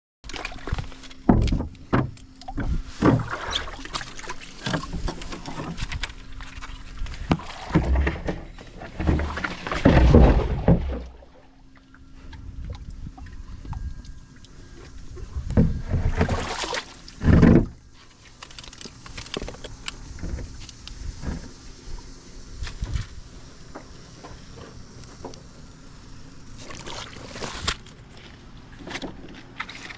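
Paddle board paddling: the paddle dips and splashes in the water, with irregular knocks and thumps against the board. The loudest bumps come about ten seconds in and again near seventeen seconds.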